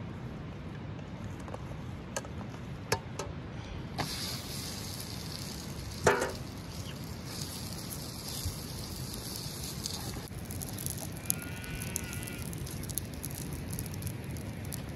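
Open dung fire crackling and hissing under cast-iron pans while flatbread dough is pressed into a pan. A few sharp knocks are heard, the loudest about six seconds in, over a steady low rumble. A brief faint warbling call comes near the end.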